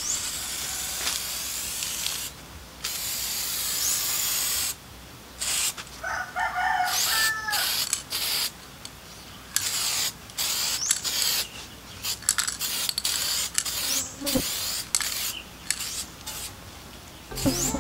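Aerosol spray can of clear coat hissing as it sprays onto a freshly painted motorcycle body panel, in on-off passes: two long sprays in the first few seconds, then many short bursts.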